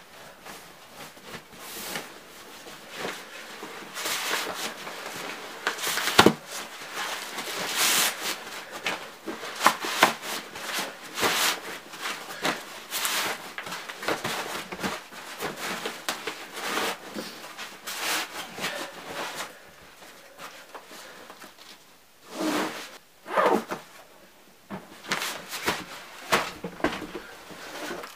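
Irregular knocks, clicks and scraping of things being handled in a small room, with a sharp knock about six seconds in and two brief pitched creaks near the end.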